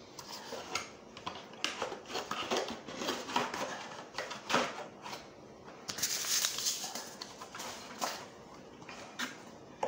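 Chia Pet's printed cardboard box being handled on a countertop: scattered knocks, taps and scrapes, with a longer rustle about six seconds in.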